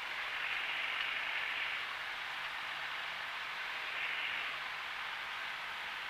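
Cessna 172 Skyhawk engine and propeller noise in the cockpit, a steady hiss with no clear pitch that swells briefly about half a second in and again about four seconds in.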